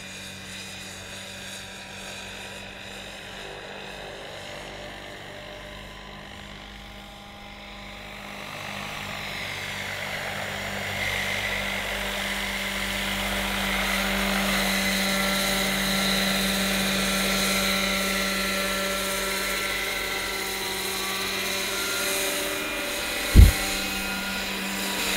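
Large electric-powered Vario SA-341/342 Gazelle scale model helicopter in flight: its rotor and electric drive run steadily with several held tones, growing louder over a few seconds as it comes closer and passes overhead. A brief low thump near the end.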